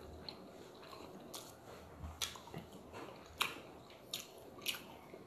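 Quiet chewing with wet mouth smacks, about half a dozen sharp smacks at irregular intervals.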